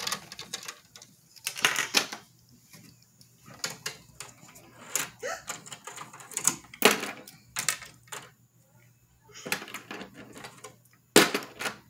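Scattered clicks and knocks of a plastic fish-track toy being handled, its pieces tapping against the plastic, with a sharper knock near the end.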